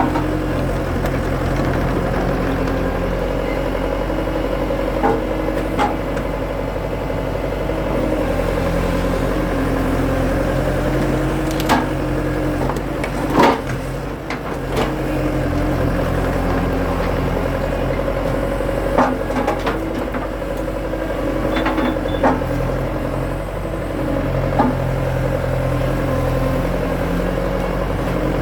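Skid steer's engine running steadily, its pitch wavering slightly under load. About eight sharp knocks and cracks come and go as big wood rounds are worked and split.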